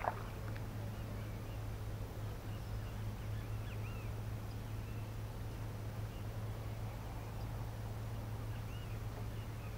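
Faint bird chirps here and there over a steady low rumble, with a short splash right at the start as a hooked fish breaks the surface.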